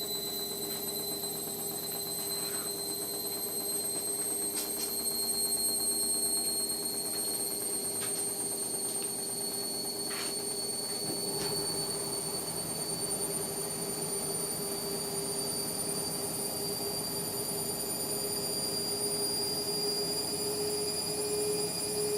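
Indesit washing machine running, its motor giving a high whine that rises slowly and steadily in pitch over a steady lower hum, with a few faint clicks; a deeper rumble joins about halfway through.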